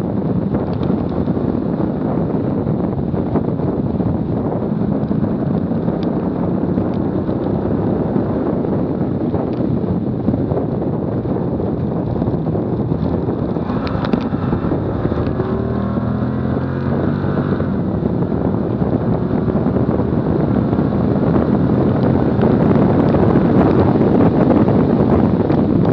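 Heavy wind rush on a bumper-mounted camera's microphone from a car at high track speed, mixed with road and engine noise. About halfway through, the engine's note shows through and rises as the car accelerates out of a slower corner, and the rush grows louder near the end as the speed climbs back past 90 mph.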